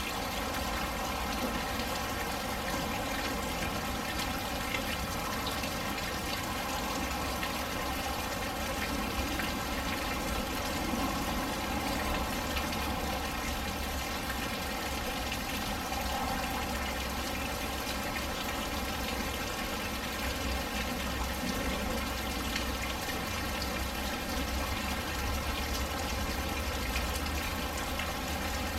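Steady rain falling, with big raindrops splashing.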